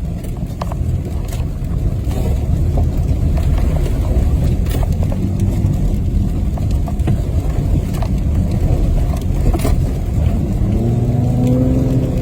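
Four-wheel-drive truck driving on an icy road: a steady engine and tyre rumble with scattered sharp clicks, and the engine note rising near the end as it accelerates.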